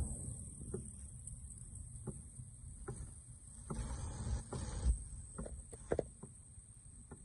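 Low wind rumble on the microphone while moving, with a steady high hiss and about ten short, sharp, irregular taps.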